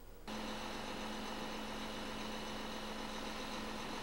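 Tanker tractor-trailer's engine running steadily, coming in suddenly about a quarter second in.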